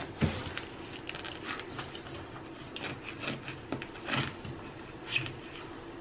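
Gloved hands handling and peeling back the insulation wrap around an ice machine's TXV sensing bulb: scattered rubbing and rustling with small clicks and taps.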